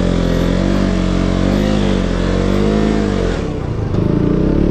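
Motorcycle engine running under way, its pitch rising and falling with the throttle. It drops a little past three seconds in, then picks up again.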